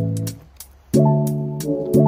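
Background music: pitched chords struck about once a second, each fading away, with light percussion clicks in between.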